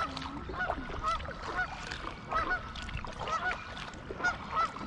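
A flock of Canada geese honking, many short calls overlapping several times a second.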